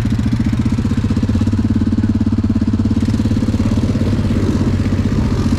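ATV engine idling, a steady, rapid putter that holds an even pitch.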